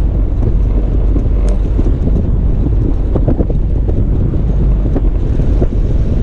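Toyota FJ Cruiser driving over a snow-covered dirt road: a steady low rumble of the vehicle and its tyres, with scattered knocks and rattles from the rough track and wind buffeting the microphone.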